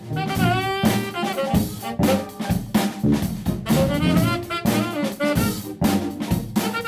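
A small jazz ensemble playing, with brass horns carrying the melody over a drum kit. The music comes in abruptly at the start.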